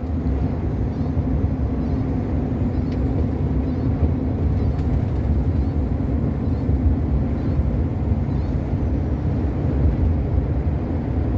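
Long-haul truck driving at road speed: a steady low rumble of engine and tyre noise with a faint hum, unchanging throughout.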